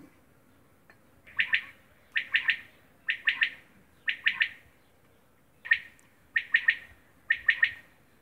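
Quail calling: seven quick phrases, most of three sharp notes each, about one phrase a second with a longer pause after the fourth.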